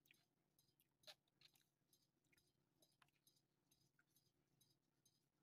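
Near silence: room tone with a few faint, short clicks, one slightly louder about a second in.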